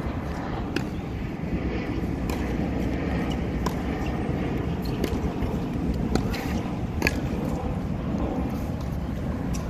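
Tennis rally on a hard court: sharp racket strikes on the ball and ball bounces, about one every second or so, over a steady low rumble.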